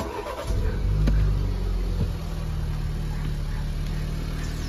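BMW X3 engine starting: the starter cranks briefly, the engine catches and flares in revs about a second in, then settles to a steady idle.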